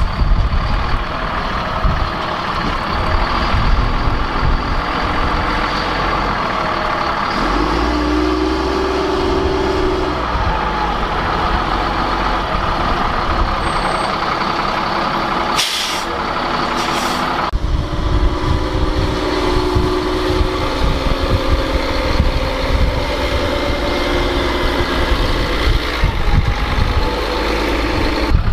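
Diesel engine of an M142 HIMARS launcher truck running as the truck drives off a cargo plane's ramp and across the tarmac.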